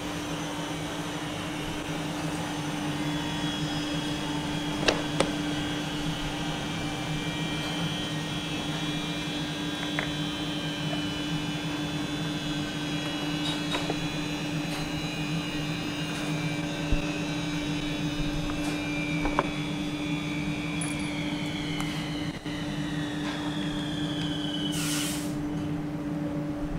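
Steady hum of woodworking-shop machinery, with a few scattered clicks and knocks of wooden parts being handled. A high whine slowly falls in pitch over the last few seconds, and a short burst of hiss comes near the end.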